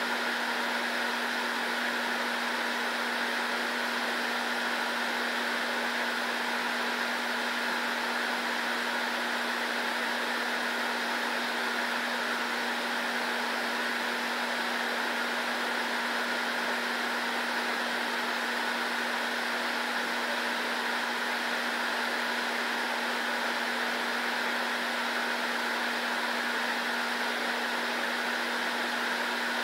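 Steady fan noise: an even hiss with a constant low hum, unchanging throughout.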